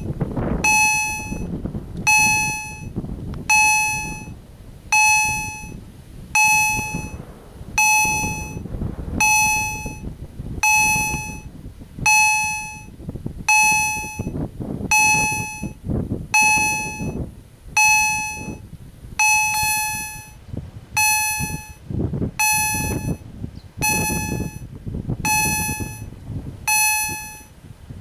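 Level-crossing warning bell (EHL-S10 electronic gong) ringing one bright ding about every 1.4 s, each strike fading out before the next. It is the audible warning that the crossing is active and a train is approaching.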